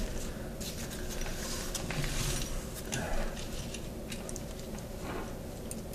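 Light, irregular clicks and taps of small metal car-starter parts being handled and fitted together.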